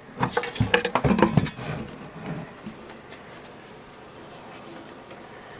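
Knocks, bumps and rubbing as a vintage valve radio is handled and turned over, in the first two seconds, then quiet room tone.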